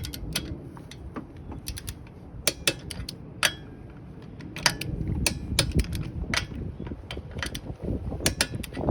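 Torque wrench ratchet clicking in irregular runs as the wheel's lug nuts are tightened down.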